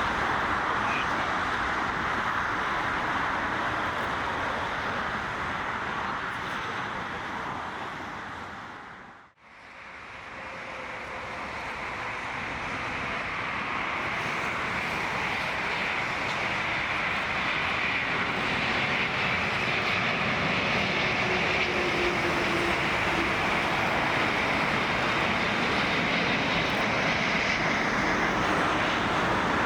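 Boeing 777 jet engine noise that fades out about nine seconds in, then a second arriving Boeing 777 fading in and building to a steady jet noise with a faint tone that slowly falls in pitch.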